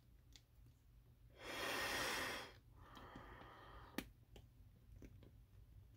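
A person breathing through a rubber 4A1 gas mask: one heavy breath about a second and a half in, lasting about a second, then a softer one. A single sharp click follows about four seconds in.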